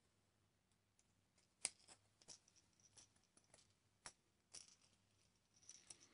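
Faint, scattered small clicks of pliers and a treble hook being worked onto a fishing lure, the sharpest about one and a half seconds in.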